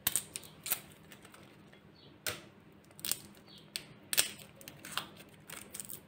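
Dry, papery garlic skin crackling and rustling as a garlic clove is peeled by hand over a plate of loose onion and garlic peel. The sound is irregular crisp crackles and clicks, about a dozen of them.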